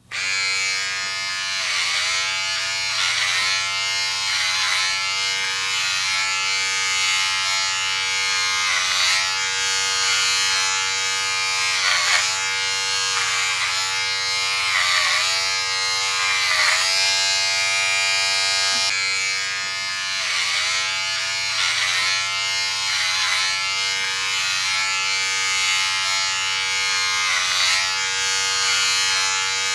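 Electric hair clipper running with a steady buzz, its pitch dipping briefly every second or two.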